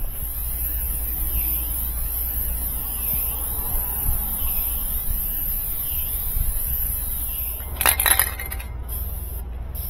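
Aerosol spray-paint can spraying in a steady hiss onto a washing-machine cabinet. Just before 8 seconds the spraying stops, and the can's mixing ball rattles briefly as the can is shaken. The spraying starts again near the end.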